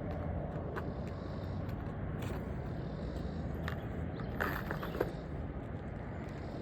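Asphalt shingle scraping and a few light clicks and knocks as a replacement shingle is worked into place under the course above it, over a steady low rumble.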